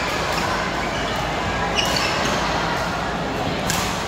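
Badminton rackets striking a shuttlecock in doubles rallies: a few sharp hits, the clearest near the end, with short squeaks of shoes on the court floor. Underneath is a steady din of voices echoing in a large sports hall.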